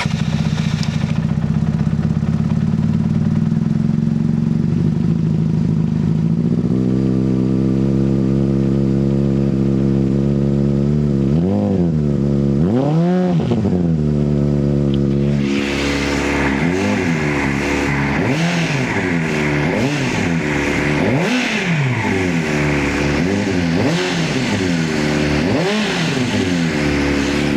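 A 2005 Honda CBR600RR's inline-four engine runs just after starting, idling steadily, and its idle rises a little about six seconds in. Two revs come around twelve seconds in. From about halfway on, quick throttle blips follow roughly once a second, on a throttle the rider finds is sticking a bit.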